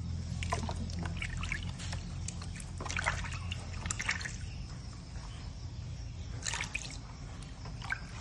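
Water splashing and trickling in a plastic tub as hands scoop and pour it over a baby monkey, in short irregular splashes. A low steady hum sits underneath and fades about halfway through.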